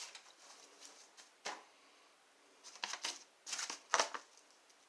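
Old paper records rustling and crinkling as they are handled, in several short bursts, most of them bunched together about three to four seconds in.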